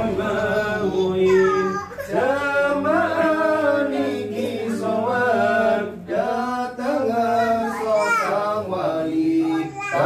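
A voice chanting an Arabic prayer in a drawn-out, melodic style, in three long phrases with brief breaths between them, over a steady low hum.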